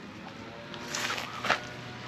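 Brief rustling of fur and backpack fabric as a hand strokes a cat, with a short sharper rustle about one and a half seconds in.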